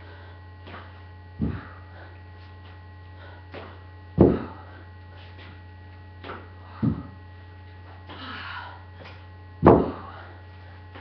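Steady electrical mains hum under a dull thud about every three seconds, four in all, as feet land in side-to-side lunges.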